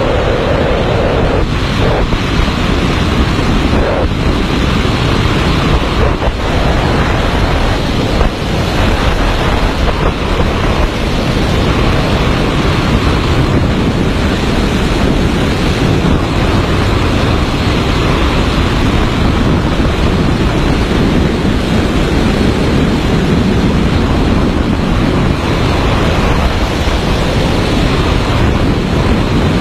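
Loud, steady rush of wind over the camera's microphone during a high-speed wingsuit flight, with a few brief buffets in the first ten seconds or so.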